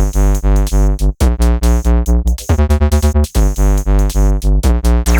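Electronic background music: synthesizer chords over a pulsing drum-machine bass beat.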